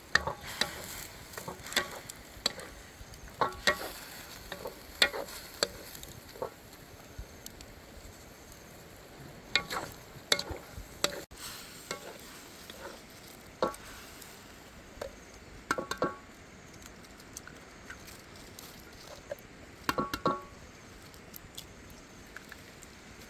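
Fish cooking over an open fire with a faint steady sizzle, broken by scattered light clicks and knocks from the food being handled.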